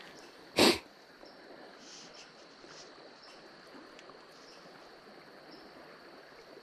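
One short, loud sniff close to the microphone about half a second in, over the low steady rush of the creek.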